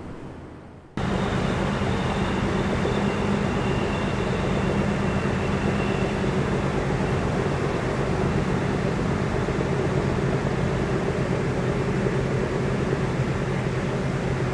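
Steady engine drone with several low tones over a wash of noise. It starts abruptly about a second in and runs evenly.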